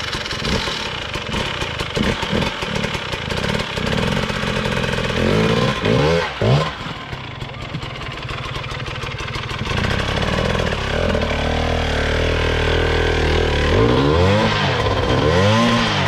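Husqvarna dirt bike engine revving hard in bursts as it claws up a rocky trail climb. The pitch sweeps sharply up and down about five to seven seconds in and again near the end.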